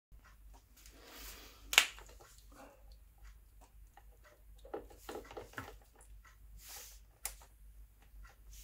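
Hands rummaging for a small plumbing tee fitting: scattered light clicks and rustles, with a sharp knock about two seconds in and another sharp click near the end.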